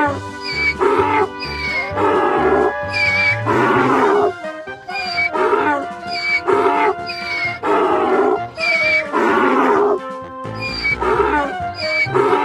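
Donkey braying over and over in harsh hee-haws, the calls coming in rounds with short breaks about five and ten seconds in, over background music with a steady low beat.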